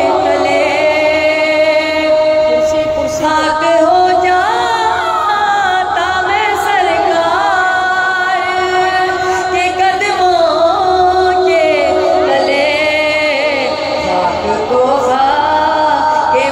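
A woman singing a devotional Urdu verse into a microphone, with long held notes that waver in pitch.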